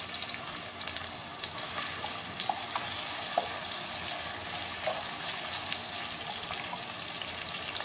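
Sliced onions sizzling in hot oil in an aluminium pressure cooker, stirred with a wooden spoon that scrapes and taps the pot now and then.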